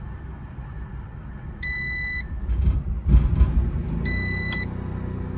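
Onan 4000 RV generator cranking for about a second after its start switch is held, then catching and running steadily over a low hum already present. Two short electronic beeps sound, one before and one after the generator catches.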